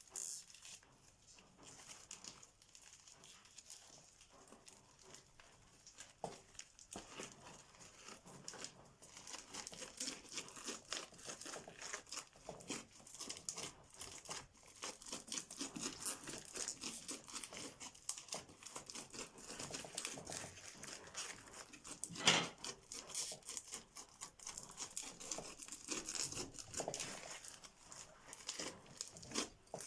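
Crunchy slime being squeezed and stretched by hand, giving a dense run of fine crackles and clicks, with one louder crack about 22 seconds in.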